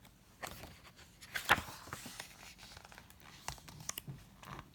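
Quiet paper rustling with a few short handling clicks, the strongest about a second and a half in: a page of a picture book being turned during a read-aloud.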